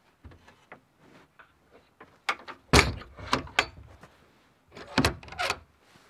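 Wooden smokehouse door being swung shut: a series of wooden knocks and thuds, the loudest a little under three seconds in, then another cluster of knocks about five seconds in.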